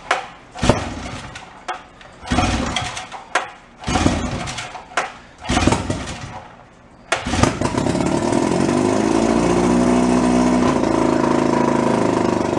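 Old two-stroke outboard motor being pull-started: a series of starter-rope pulls with the engine coughing, then about seven seconds in it catches and keeps running, its pitch rising and falling as it revs.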